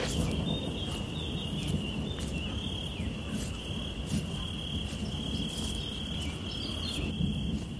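Insects chirring in a steady high-pitched drone, with a low rumble underneath.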